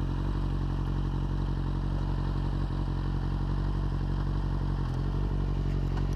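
Kawasaki Ninja sport bike's engine idling steadily while stopped at the curb, then switched off right at the end, cutting out abruptly.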